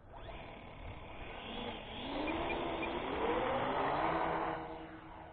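Twin geared electric motors of a GWS P-38 Lightning RC plane whining in flight, the pitch rising over about two seconds as it gets louder, then holding steady and fading away near the end.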